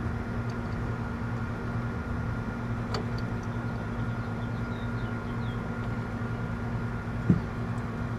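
Steady electrical machine hum, with a sharp click about three seconds in and a short low knock near the end.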